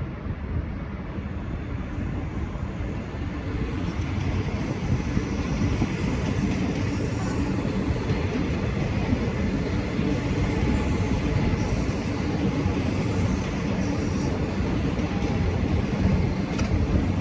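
V/Line N-class diesel-hauled train moving through the station, a steady low rumble that grows louder about four seconds in.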